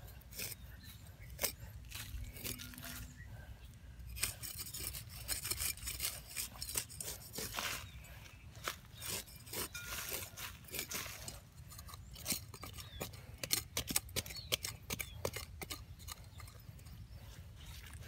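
A homemade digging blade forged from flattened steel rebar scraping and chopping into loose, dry soil: irregular gritty scrapes and ticks of metal through crumbly earth, thickest in the middle stretch.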